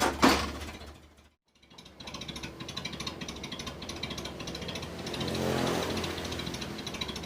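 Mitsubishi L300 petrol engine running with a rapid pulsing note. There is a sharp, loud burst at the very start and a brief dropout about a second in. The engine then runs steadily, with a rev that rises and falls about five to six seconds in.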